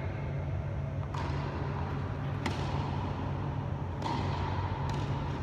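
Tennis ball hits in a doubles rally: sharp pops of racket strikes and ball bounces, a second or so apart, echoing in a large indoor hall.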